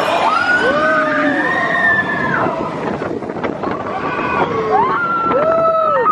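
Mine-train roller coaster car running on its track with wind rushing over the microphone, and riders letting out long screams that rise, hold and fall, several voices at once, in the first two seconds and again near the end.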